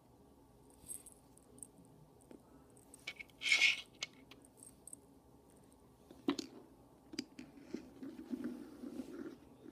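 Handling noises on a wooden tabletop: scattered light clicks and taps as a tiny cork stopper is handled and set down, with a brief rustle about three and a half seconds in.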